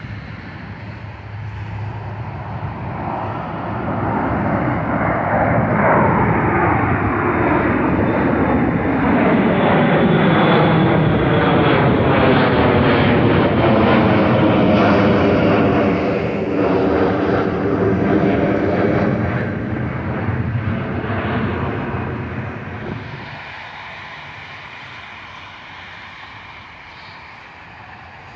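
Jet engines of a narrowbody airliner climbing out after takeoff and passing overhead. The engine noise builds over several seconds, stays loud with a sweeping, phasing sound as the jet goes over, then fades away.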